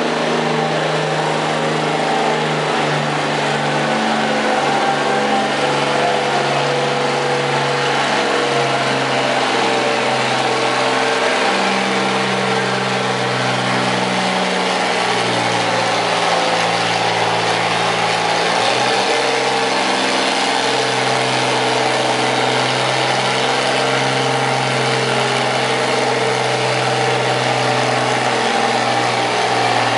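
Oliver tractor engine working hard under load while pulling a weight-transfer sled, running loud and continuous with its note shifting up and down a few times.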